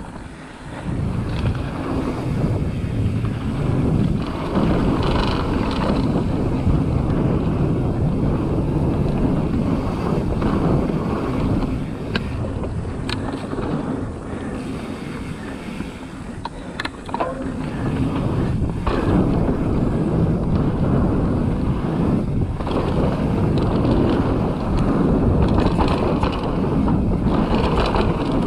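Wind rushing over the camera microphone and a mountain bike's tyres rolling over dry dirt and gravel at speed, with a few sharp clicks and knocks from the bike about halfway through.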